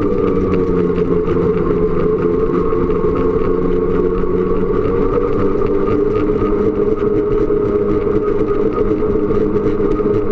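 Snowmobile engine running steadily under way, its pitch holding nearly constant, with rough low rumble from the machine moving over the trail.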